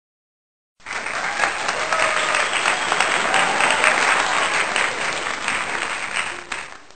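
Recorded crowd applause, many hands clapping at once. It starts suddenly about a second in and fades away near the end.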